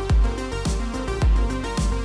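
Electronic background music with a steady kick-drum beat, a little under two beats a second, under sustained synth notes.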